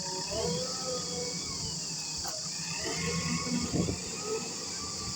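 Low steady hum of an earthmoving machine's engine running, under a constant high chirring of crickets.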